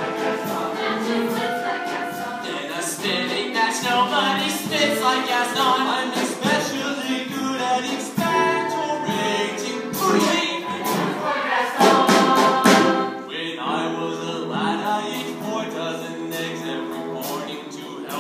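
Stage musical cast singing together as a chorus, with sharp hits cutting through now and then and a louder swell about twelve seconds in.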